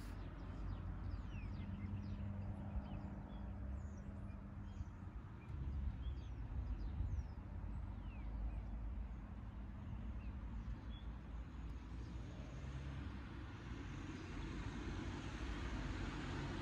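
Outdoor ambience of a village roadside: a steady low rumble of road traffic, with small birds giving short high chirps. A passing vehicle swells louder near the end.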